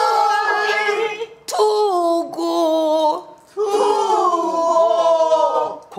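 A woman singing pansori in three long held phrases, her voice wavering in a wide vibrato and sliding between notes, with short breaths between phrases about a second and a half in and again around three seconds.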